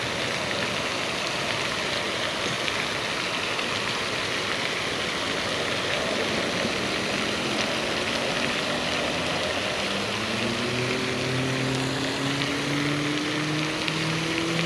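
Steady rushing hiss of water spray from a pond fountain. About halfway through, an engine hum joins it and rises slowly in pitch.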